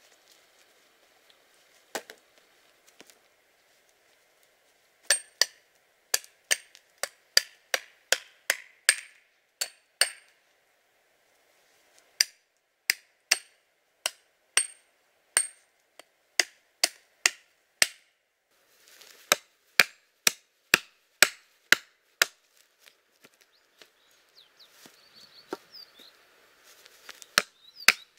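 Hatchet chopping into a wooden pole to sharpen its end into a stake: sharp single strokes about two a second, in several runs with short pauses between them.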